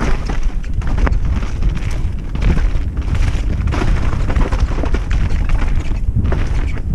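Wind buffeting a ride-mounted camera's microphone over the rumble, rattle and knocks of a bike descending fast on a wet dirt trail.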